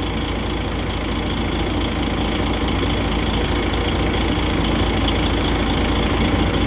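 DAF truck's six-cylinder diesel engine idling steadily.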